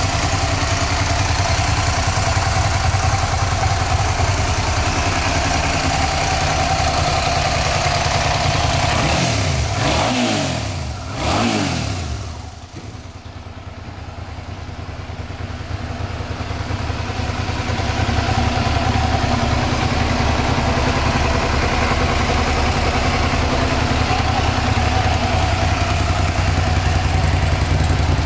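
Suzuki SV650's 645 cc V-twin engine idling steadily, with a brief rise and fall in revs about ten seconds in.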